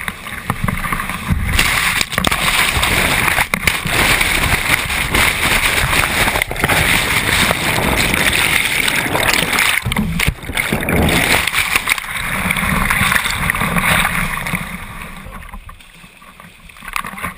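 Rushing whitewater and heavy splashing over a kayak-mounted camera, with gurgling as the camera goes under the water around the middle. The noise eases off near the end as the kayak reaches calmer water.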